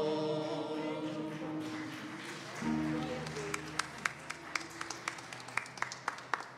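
A mixed church choir's final held chord fading away, then a soft sustained low chord. Scattered handclaps begin about three and a half seconds in.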